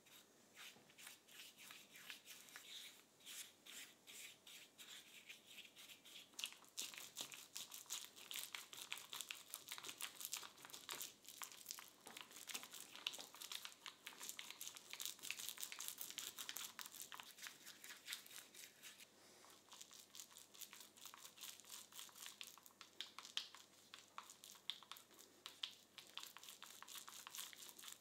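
Small paint roller working wet red paint onto a steel pipe vise frame: a faint, fast, sticky crackle of many tiny clicks that grows denser about six seconds in.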